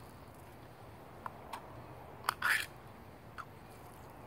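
Handling of an opened can of chicken breast over a canteen cup: a few light clicks and one short scraping burst about two and a half seconds in, the loudest sound.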